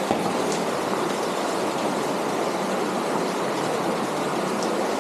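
Small cave stream running low over rocks inside a cave, a steady, noisy rush of water.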